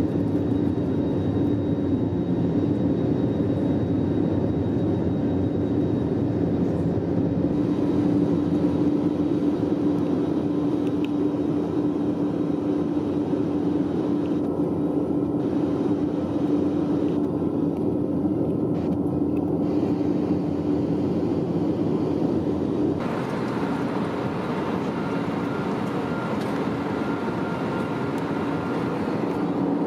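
Airbus A320neo cabin noise in flight: a steady drone of engines and airflow with a steady low hum running through it. About 23 seconds in it changes abruptly to a slightly quieter, hissier drone.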